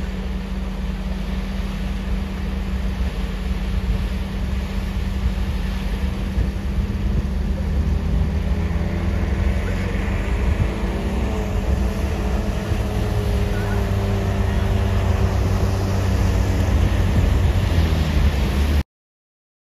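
4x4 vehicle driving off-road: a steady low engine and road rumble mixed with wind noise, growing a little louder toward the end, then cutting off abruptly.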